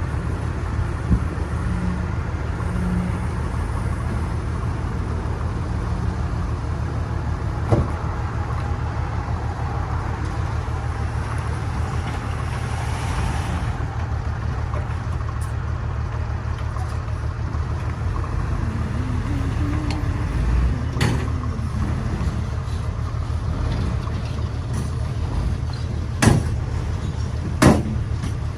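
Heavy diesel engine of construction machinery running steadily, with a few sharp knocks scattered through.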